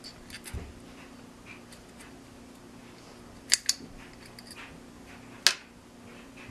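Small clicks and taps of a light 3D-printed plastic drone body and its wires being handled and fitted by hand, with a sharp double click about three and a half seconds in and another sharp click about two seconds later, over a faint steady hum.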